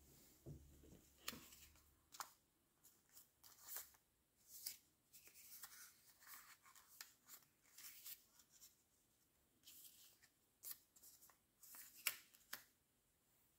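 Faint rustling and crinkling of folded printing paper as hands press and adjust an origami shirt, tie and pants: short, scattered crackles.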